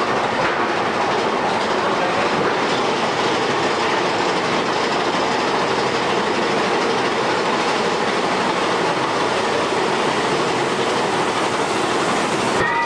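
Roller coaster train running along its track: a steady, even noise of wheels on rail.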